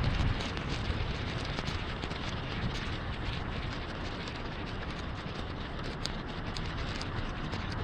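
Heavy rain hitting a moving car: a steady hiss scattered with the sharp ticks of single drops.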